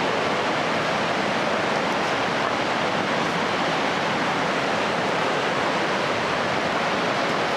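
Steady rush of glacial meltwater running through an ice cave, an even noise that holds at one level throughout.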